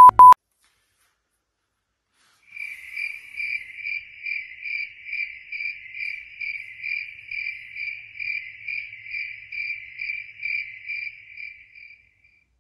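Cricket chirping steadily, about two chirps a second, starting a couple of seconds in and stopping shortly before the end. It is preceded by a brief test-tone beep at the very start.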